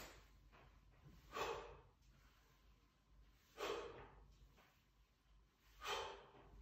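A man's sharp exhalations, three of them about two seconds apart, as he works hard through a hip-bridge exercise.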